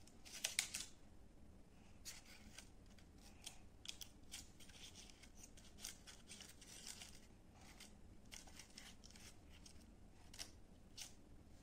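Small children's scissors snipping through strips of paper: faint snips at an uneven pace, with a quick cluster of them right at the start.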